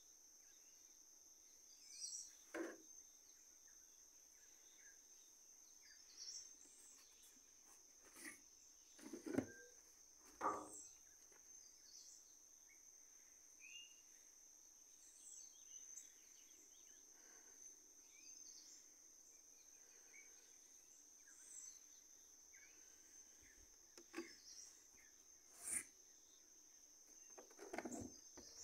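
Near silence: faint outdoor ambience with a steady high insect trill, likely crickets, and a few soft knocks scattered through.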